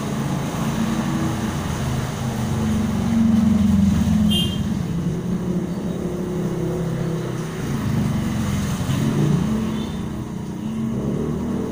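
Small motorbike and scooter engines passing close one after another, their hum swelling and fading as each goes by, over steady rain. A short high-pitched tone sounds about four seconds in.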